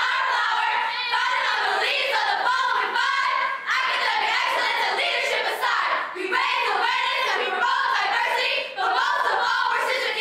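A group of women's voices singing together in unison, with no instruments.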